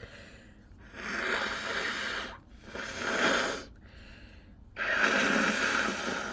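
A person taking three long, noisy breaths through the nose during a pepper-induced sneeze buildup, with no sneeze yet. The last breath starts abruptly a little before the end.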